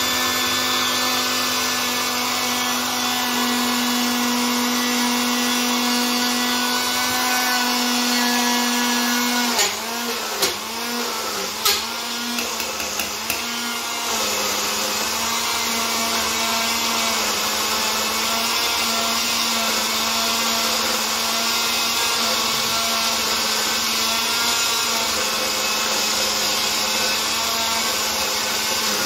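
Electric mixer grinder running steadily, its motor blending a wet mint and coriander chutney in a stainless steel jar. About ten seconds in, the motor's pitch dips and picks up again several times, with a few clicks, before it settles back to a steady run.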